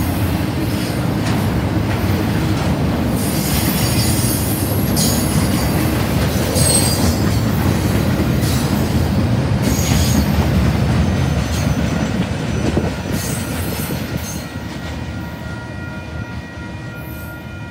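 Double-stack intermodal freight cars rolling past: steady rumble of wheels on the rails with high metallic wheel squeals and clacks. The noise fades over the last few seconds as the end of the train moves away, and a steady high tone comes in under it near the end.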